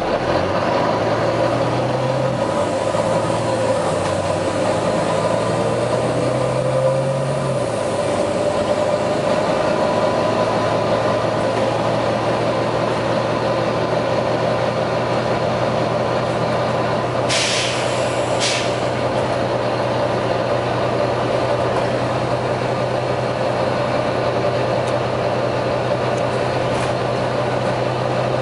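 Volvo B9TL bus's nine-litre six-cylinder diesel running, its note shifting over the first several seconds before settling steady with a whine. Two short, sharp hisses come about two-thirds of the way through. The uploader takes the hissing for a faulty turbo.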